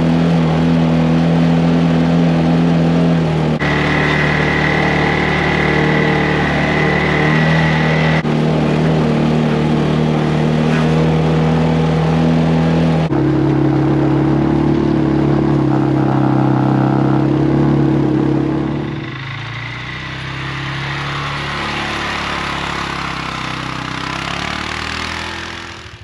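ATV engine running steadily under load as it drags a heavy log through wet snow to push it aside, its pitch shifting abruptly a few times. About 19 seconds in it drops to a quieter rushing hiss.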